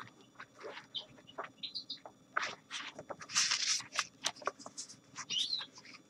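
Pages of a paperback book being turned and handled, with a rustle about three seconds in. Short high chirps of small cage birds sound now and then.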